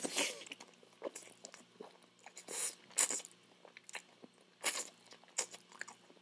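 A person slurping spaghetti strands and chewing, a run of short wet slurps and mouth clicks, the loudest near the start, about halfway through and past two-thirds of the way.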